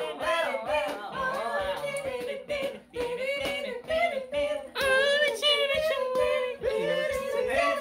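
Young men's voices singing snatches of a song unaccompanied, the pitch gliding up and down with short breaks between phrases.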